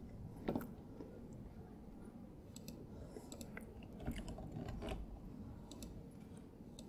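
Faint, scattered clicks of a computer mouse and keyboard being worked, over quiet room tone.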